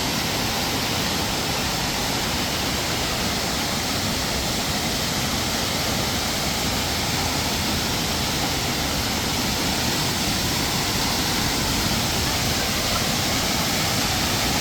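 A waterfall's steady, unbroken rush of falling water.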